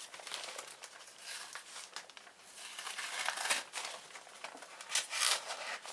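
Packaging crinkling and rustling in uneven bursts as a boxed smoke detector is opened by hand.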